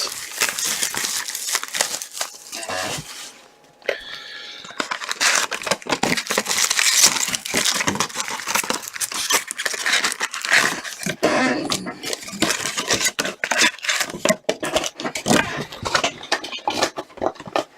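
Plastic trading-card packaging being crinkled and torn open by hand, a dense run of crackles with a short lull about four seconds in.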